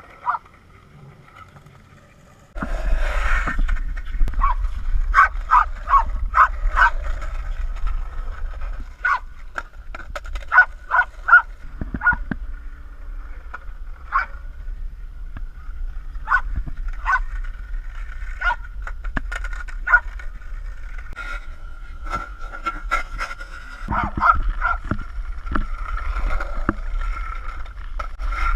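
A dog barking and yipping in many short, separate barks, over a steady low rumble that starts a couple of seconds in.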